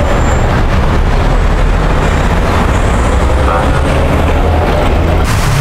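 Steady rumble of road traffic, with a louder hiss coming in near the end.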